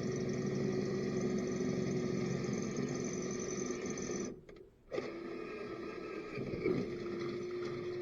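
Electric drill running steadily with a constant whine while drilling a hole. It stops for about half a second a little over four seconds in, then starts again at a slightly lower pitch.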